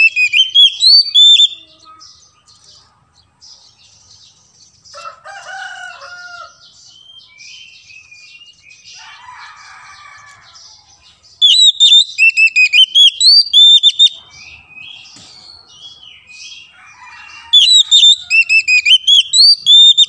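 Oriental magpie-robin (kacer) singing: three loud bursts of rapid, sweeping whistled notes, one at the start, one in the middle and one near the end, with softer chattering and warbled notes between.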